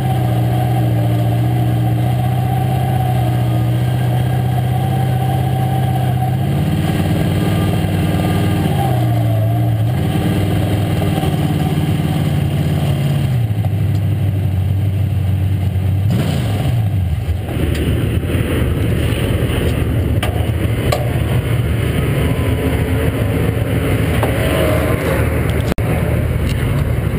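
Late model stock car's V8 engine, heard from inside the cockpit at low speed. Its pitch steps up and back down twice as the throttle is opened and closed. About two-thirds of the way through the note falls away, and a rougher, noisier engine rumble takes over.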